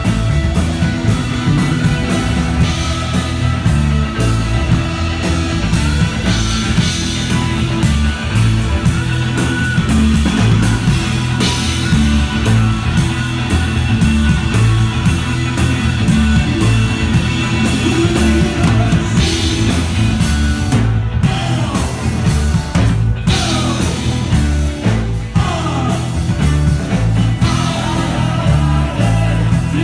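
Rock band playing loudly, with guitar, bass and a steady drum beat, and some singing.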